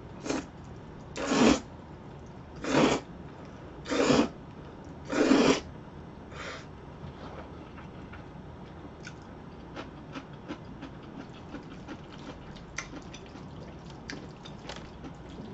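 A woman slurping up a mouthful of jjajangmyeon (black bean sauce noodles), about six slurps roughly one every second and a bit, then quieter chewing with small clicks and smacks.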